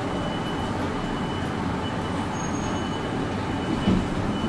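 Steady running noise inside a resistance-controlled 610 series electric multiple unit moving slowly into a depot shed, with a thin high tone that comes and goes. A single thump sounds about four seconds in.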